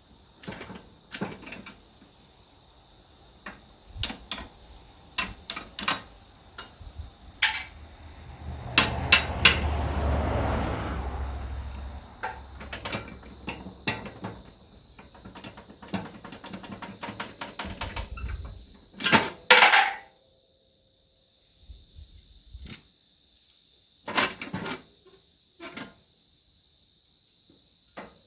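Scattered metal clinks and clanks of hand tools and parts being handled during work on a tractor's loader hardware, with a rougher, scraping stretch around ten seconds in.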